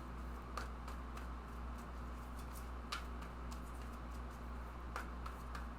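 Tarot cards being handled: a few soft, sharp clicks and taps, spaced a second or two apart, over a steady low hum.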